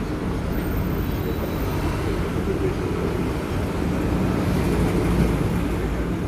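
Hong Kong double-decker tram running, a steady low rumble.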